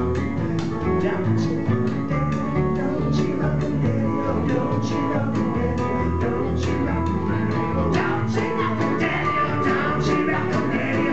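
Live bluegrass band playing: strummed acoustic guitar and upright bass under a lead singer's voice.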